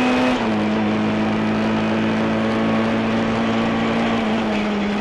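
Rally car engine running at high, steady revs on a straight, heard from inside the car with road noise underneath. Its pitch steps down sharply about half a second in, then holds nearly level.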